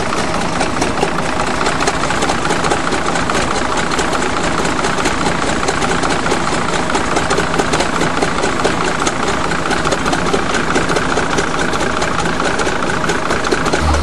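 Old crawler bulldozer's diesel engine running steadily with a rapid clatter.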